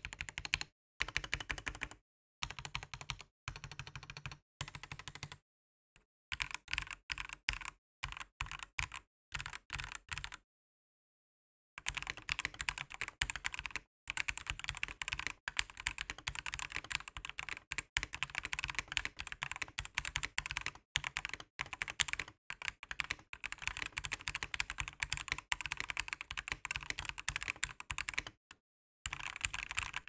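Typing on a Newmen GM326 hotswap 75% mechanical keyboard with Jixian red switches, greased stabilizers and thick XDA PBT keycaps. Fast runs of key clacks come in several stretches, broken by brief silent gaps, the longest about ten seconds in.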